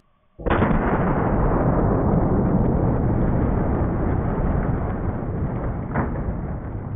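10 gauge shotgun slug blast and cinder block shattering, played back slowed down: a sudden boom about half a second in, stretched into a deep, even rumble that lasts several seconds and slowly fades.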